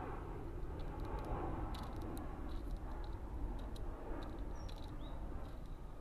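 Scattered sharp clicks of a wood pigeon's beak pecking seed in a plastic feeder tray, over a steady low rumble, with two faint high chirps from a small bird about two-thirds of the way through.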